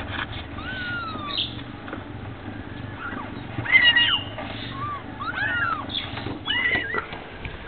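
Newborn kittens mewing: about half a dozen short, high-pitched calls that rise and fall in pitch, the loudest about four seconds in.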